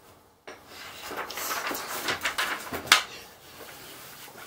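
A sheet of paper and pencils being handled and set down on a blanket: a couple of seconds of rustling and scraping with small clicks, the sharpest click about three seconds in, then quieter.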